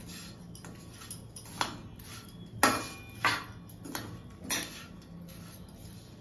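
Metal spoon stirring grated coconut and jaggery in a brass pan, scraping and knocking against the pan's side in about five sharp clinks that ring briefly, the loudest a little before the middle.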